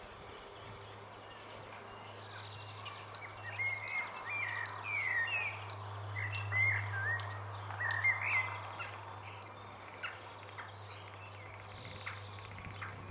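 Great tit singing: a run of short, repeated slurred notes lasting about five seconds, starting a few seconds in, over a steady low hum.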